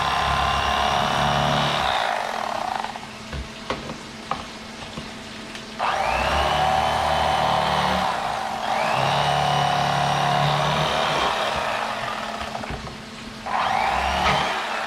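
Electric fillet knife running in three bursts as it cuts through crappie. It stops at about two and a half seconds, restarts with a rising whine near six seconds, pauses briefly, and starts again near the end.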